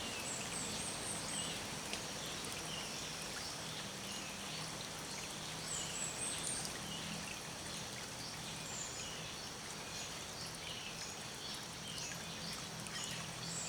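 Several small birds chirping and calling in short, scattered high notes over a steady rushing wash like running water, with a faint low hum underneath.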